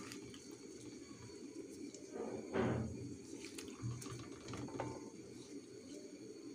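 Hand squishing small raw fish coated in turmeric, salt and oil against a metal pan: faint wet squelching, with one louder squelch about two and a half seconds in.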